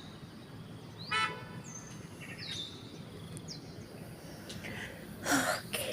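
Birds calling: short, high, falling whistles every second or so. About a second in there is a brief horn-like toot, and near the end a short noisy burst.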